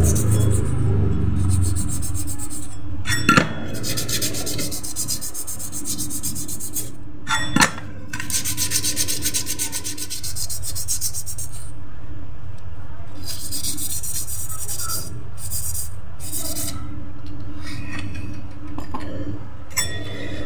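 A Honda scooter's rear CVT pulley assembly being twisted and rubbed by hand against its metal parts, making a rasping metal scrape that comes and goes in stretches. Two sharp metal knocks come about three and about seven and a half seconds in.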